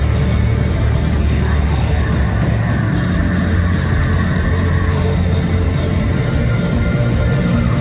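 Live rock band playing loud, dense heavy music: a wall of distorted guitar over a strong, steady bass low end.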